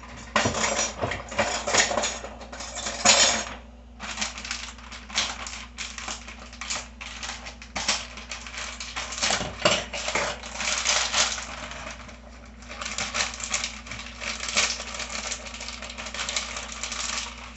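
Dense crackling and rattling handling noise in three long stretches, with short pauses about 3.5 and 12.5 seconds in.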